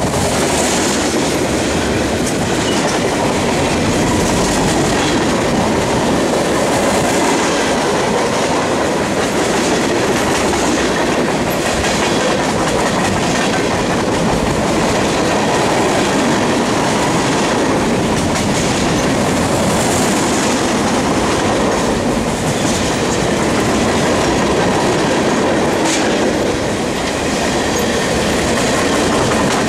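Freight cars (covered hoppers, then boxcars) rolling past close by at speed: a loud, steady noise of steel wheels on the rails, with wheels clicking over the rail joints all through.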